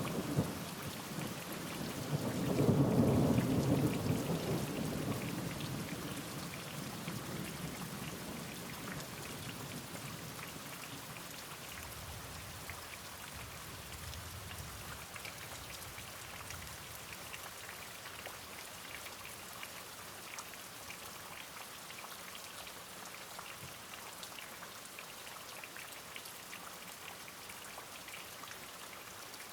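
Steady rain falling, with fine drop patter throughout. A rumble of thunder swells about two seconds in and slowly fades over the next several seconds.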